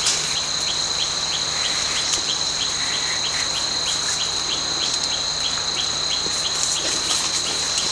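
Forest insects droning in a steady, high-pitched chorus, with a faint regular ticking about three times a second.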